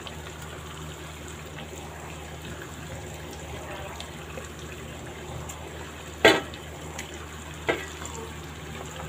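Stuffed bitter gourds (karela) in masala gravy bubbling steadily in a kadai. A spatula knocks sharply against the pan twice, about a second and a half apart, the first louder.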